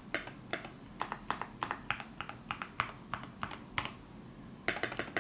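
Typing on a KBD75v2 mechanical keyboard with an aluminium plate and lubed, filmed NK Dry Red linear switches: separate keystrokes at an uneven pace of about three a second. Near the end there is a short pause, then a quick run of keys.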